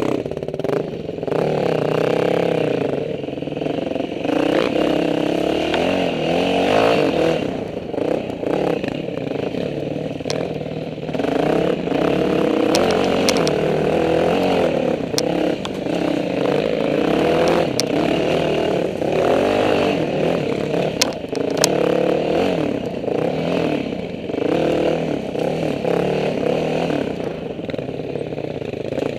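Dirt bike engine heard from on board, its revs rising and falling continually as it is ridden over a rough trail. Scattered sharp clicks and clatter come in the middle stretch.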